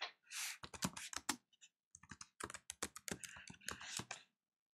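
Typing on a computer keyboard: a quick run of keystrokes entering a short terminal command, stopping a little after four seconds in.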